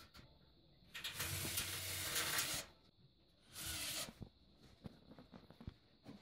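Cordless drill running in two bursts, about a second and a half and then just under a second, driving screws into the ceiling frame.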